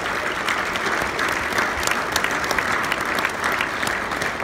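Audience applauding: many hands clapping together in a dense, steady patter.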